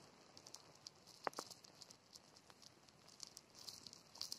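Near silence: faint scattered rustling and small ticks, with one sharper click about a second and a quarter in.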